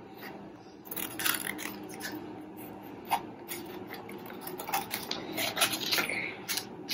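Scissors snipping through a sheet of paper, making a string of short, irregular snips with paper rustling between them.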